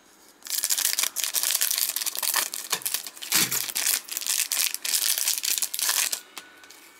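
Clear plastic wrapping of a trading-card pack crinkling and rustling as it is handled and pulled open. It starts about half a second in, runs with many small crackles, and stops about a second before the end.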